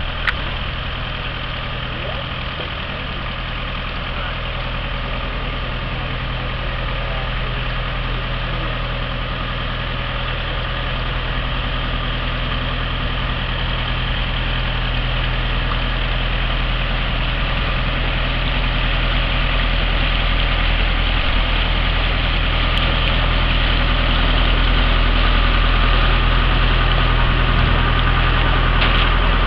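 Push tug's engine running steadily as it pushes a loaded mud hopper along the canal, growing gradually louder as the tug draws closer.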